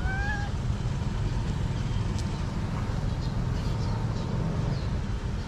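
Hungry stray cat meowing once for food: a short meow of about half a second at the very start, rising a little in pitch. A steady low rumble runs underneath it.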